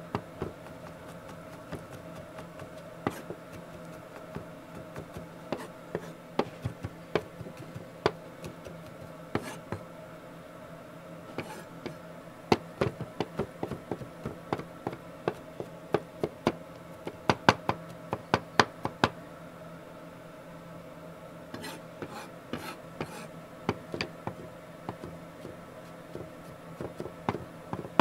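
Chef's knife chopping garlic on a wooden cutting board: a run of sharp knocks of the blade on the board, coming quickest in the middle, then a short pause before more chopping. A steady low hum runs beneath.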